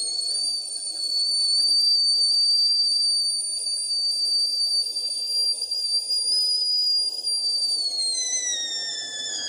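Primula Stewart stainless steel stovetop kettle whistling at the boil, a loud high steady whistle. Near the end it slides down in pitch and splits into two tones.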